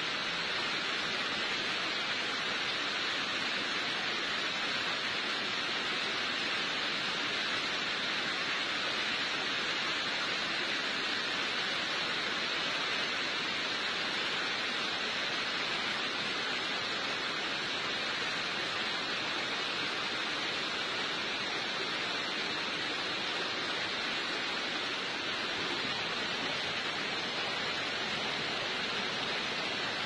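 Waterfall pouring down a rock face onto boulders: a steady, even rush of water that does not change.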